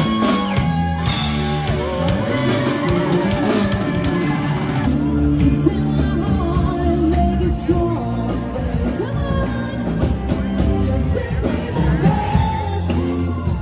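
Rock-style music with a singing voice over a drum kit.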